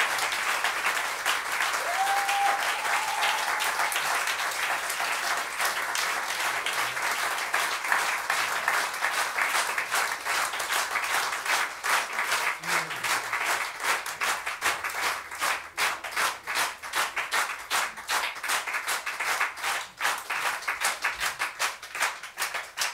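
Audience applauding in a small club, dense at first and thinning out into separate claps over the second half. A voice in the crowd calls out briefly about two seconds in.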